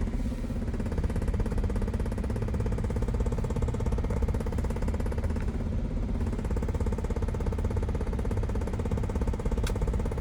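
A 2020 Jeep Wrangler on the move, a steady low drone with a fast, even rattle running through it: the rattle the owner has had blamed on the seat belts, the rear window and the rear differential.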